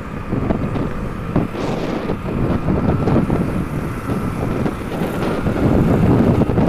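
Wind buffeting the microphone on a moving Hero Splendor motorcycle, over the steady running of its small single-cylinder engine at cruising speed.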